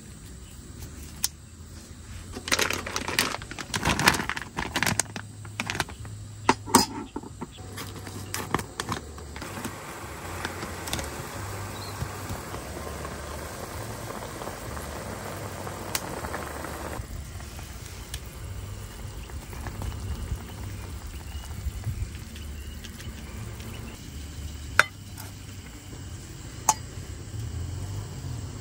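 Camp gear being handled: a run of clinks and knocks, then about seven seconds of steady hiss, and later two single sharp clicks, over a low rumble.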